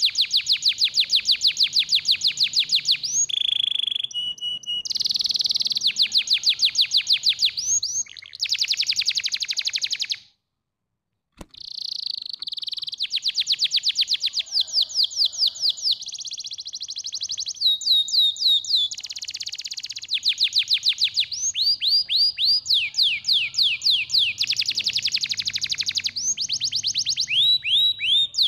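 Domestic canary singing: long fast trills of rapidly repeated high notes, one roll running into the next at a shifting pitch. The song breaks off into about a second of silence about ten seconds in, then carries on.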